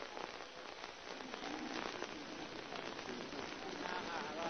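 Faint, even crackling hiss with no clear source. Near the end, chanting voices start to fade in.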